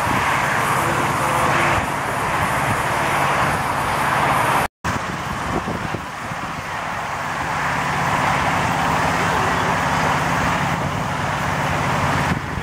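Miniature-railway locomotive running steadily as it hauls a passenger train: a low, even engine hum under a rushing noise. The sound drops out for a moment about five seconds in.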